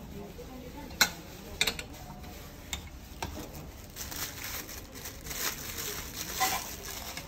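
G-Shock watch boxes and packaging being handled: a few sharp clicks and knocks, the loudest about a second in, then rustling and small clicks from about four seconds in.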